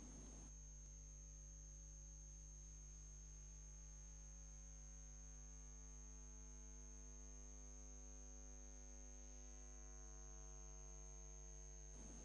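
Near silence with a steady low electrical mains hum and a faint, steady high-pitched whine.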